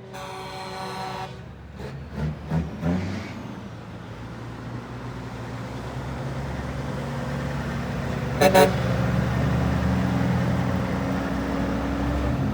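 A train horn on a semi truck sounding, ending about a second in, then a diesel truck engine running and growing louder, with one short horn toot about eight seconds in.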